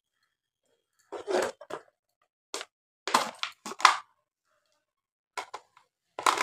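Short rustles and light knocks from handling green chillies, snapping off their stalks and dropping them into a plastic tub: a few separate bursts with silence between.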